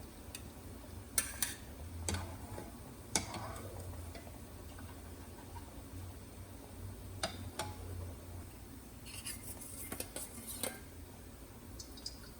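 Kitchenware being handled: scattered light clinks and taps of dishes and utensils, a few single ones and then a quick cluster near the end, over a faint steady low hum.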